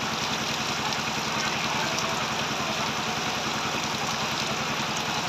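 An engine idling steadily under the constant hiss of heavy rain.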